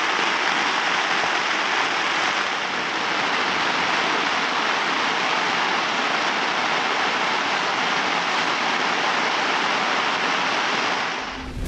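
Steady, even rush of water, a loud hiss that cuts off abruptly near the end.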